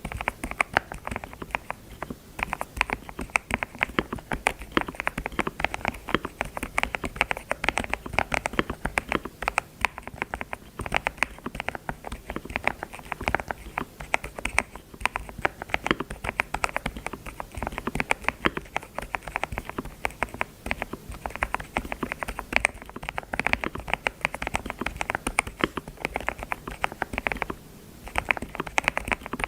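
Fast, continuous typing on a computer keyboard: a dense stream of key clicks, with a brief pause near the end.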